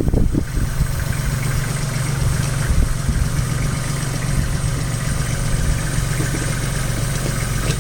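Vehicle engine running at a steady idle, a constant low drone.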